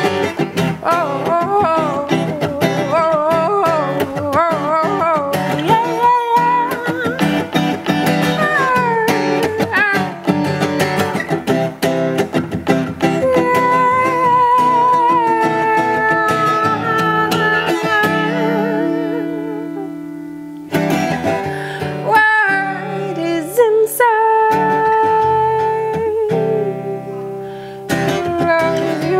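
A woman singing improvised soul over a strummed acoustic guitar: her voice winds through runs with vibrato and holds long notes, and drops out briefly about two-thirds of the way through while the guitar plays on.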